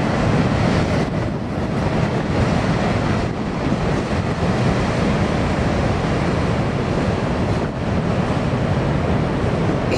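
Freight cars rolling slowly past on a bridge with a steady, loud rumble.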